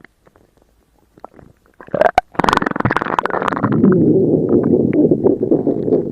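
Stomach growling and gurgling. There are faint pops at first, then a couple of sharp clicks about two seconds in and a higher gurgle, settling from about four seconds in into a steady low rumble.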